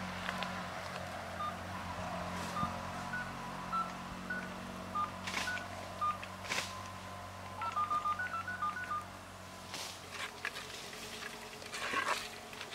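Water poured into a clay cooking pot and a ladle knocking and scraping in it, a few sharp knocks spread through. A string of short, high, even-pitched beeps sounds through the first three quarters, like phone keypad tones.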